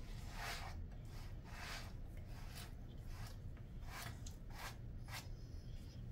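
A pet grooming brush raked repeatedly through a Jindo dog's thick coat: a series of short, scratchy brushing strokes, about one every half second or so.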